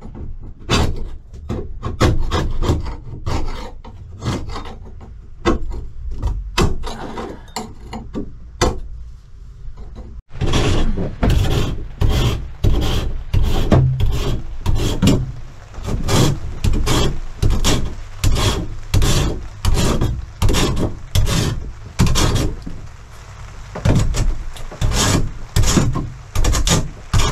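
A hand tool rasping back and forth in steady strokes, about two a second, with a short break a little after ten seconds.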